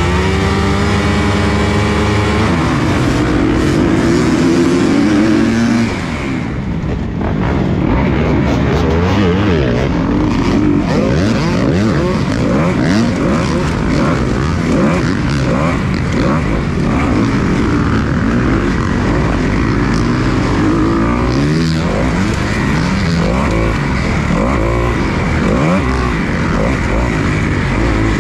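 Kawasaki KX250 four-stroke motocross bike and the other bikes on the start line held at high revs. About six seconds in the sound changes as the pack launches, and from then on the engines rise and fall in pitch as the bikes race through the gears close together.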